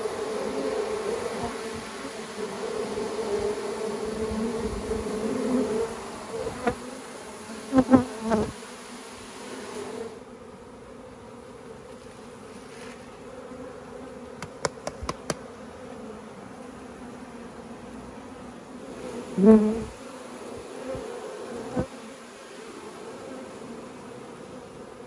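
Honeybees of a captured swarm buzzing as they are hived into a log hive, a steady hum with two brief louder swells about eight seconds in and near twenty seconds in. A few light clicks in the middle.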